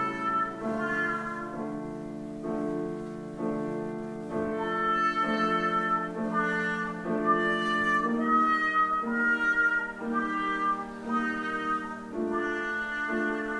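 Trumpet and trombone playing a duet in sustained melodic lines, with piano accompaniment.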